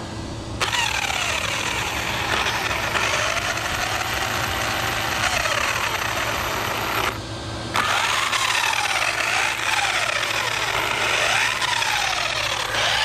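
Twin electric motors and drivetrain of an Arrma Felony RC car revved up and down in repeated bursts, a whine rising and falling in pitch, with a brief break about seven seconds in. The whine is the sign of a badly set gear mesh.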